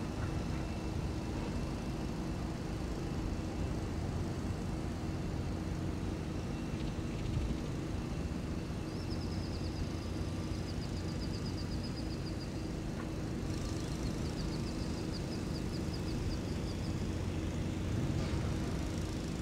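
Steady low hum of heavy engines running. A high, fast chattering trill is heard twice in the middle.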